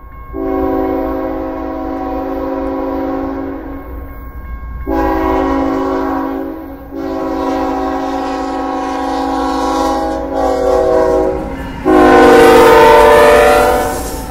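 CSX freight locomotive's multi-chime air horn sounding four blasts as the train approaches, the last and loudest as the lead locomotive comes alongside, over a low rumble of the moving train.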